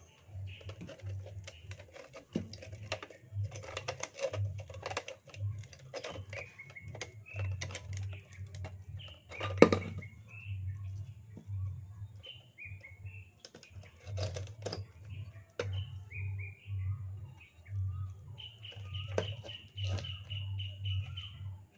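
Clicks, clinks and rattles of a rusty metal hurricane lantern being handled and taken apart, with one sharper knock about ten seconds in. Birds chirp in the background, with a longer held call near the end.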